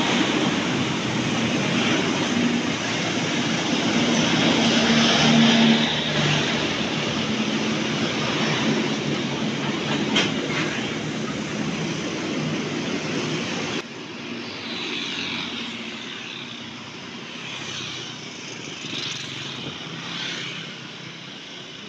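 Diesel locomotive passing directly below with a steady low engine note, then its coaches rolling past, with one short sharp click about ten seconds in. About fourteen seconds in the sound cuts to quieter road traffic, with a motorbike passing.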